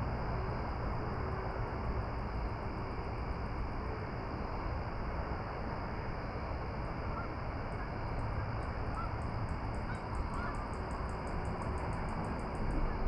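Steady outdoor rushing noise with a few faint bird calls past the middle. A fast, high ticking comes in during the second half and grows stronger toward the end.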